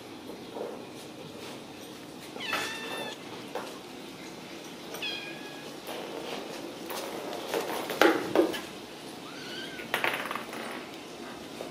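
Ragdoll kittens mewing: about three short, high-pitched meows spread through the stretch, with a few sharp knocks about two-thirds of the way in.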